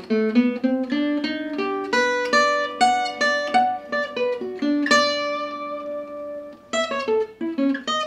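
Gypsy jazz acoustic guitar playing a single-note lick: a quick run of picked notes, one note left ringing from about five seconds in, then more quick notes near the end. The phrase runs over a B7 altered chord resolving to E minor.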